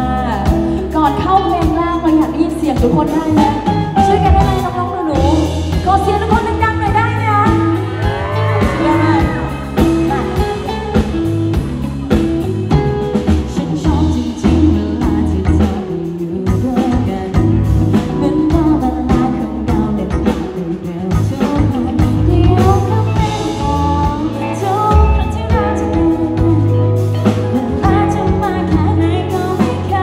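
Live pop-rock band: a woman singing into a microphone over drum kit, electric guitar and keyboard.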